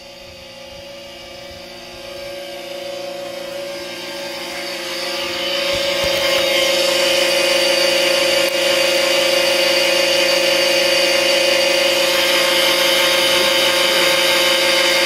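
Swimming pool pump motor running with a steady, loud electric hum and whine. It grows louder over the first six seconds or so as it is approached, then holds steady.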